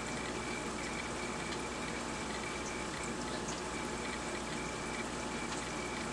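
A large aquarium's filter and water circulation running steadily, with water trickling. Faint small ticks and a faint high whine come and go over it.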